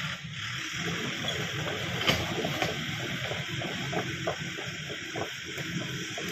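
A backhoe's engine running steadily under a wash of hiss, with many short crackles scattered throughout.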